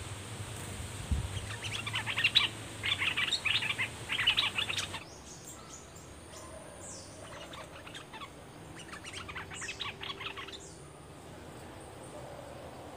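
Bulbuls calling in rapid chattering phrases: three loud bouts in the first five seconds, then softer bouts in the middle, with thin high-pitched calls over them.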